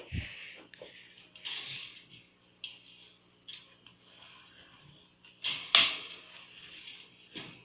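A metal tin food dish knocking and scraping against the wire bars of a budgerigar cage as a hand pulls it out, in a string of separate clicks and clatters, the sharpest one late on.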